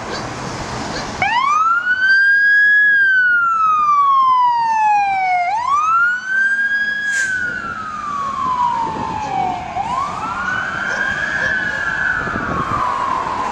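Fire engine siren on a 2019 Rosenbauer Commander pumper/rescue responding code 3. After about a second of traffic noise, the siren starts in a wail, sweeping up quickly and sliding slowly down, about three cycles. The last sweep sounds doubled.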